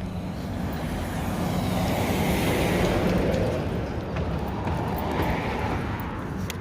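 Wind buffeting the microphone, a rumbling rush that swells into a stronger gust about halfway through and eases off again.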